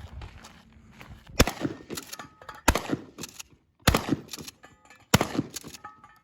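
Four gunshots fired about a second and a quarter apart, each followed by a few quieter clicks and clatter.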